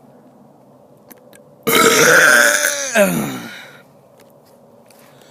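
A man's long, loud burp, lasting about two seconds and starting a little under two seconds in, its pitch sliding down as it ends.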